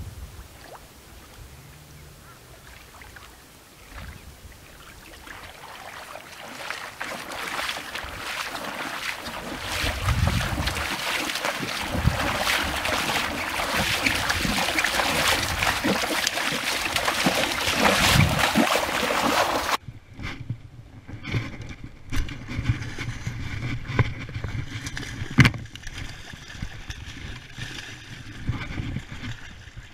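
Sloshing of legs in chest waders pushing through shallow floodwater, getting steadily louder as the wader comes closer. It changes abruptly to fish splashing and thrashing in the shallows, with a sharp crack near the end.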